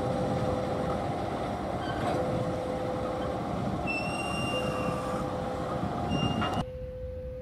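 Diesel-electric locomotive hauling a tank wagon slowly past, engine running with brief high wheel squeals every couple of seconds and a steady tone switching on and off. About six and a half seconds in the sound cuts off sharply to an electronic level-crossing alarm alternating between two tones.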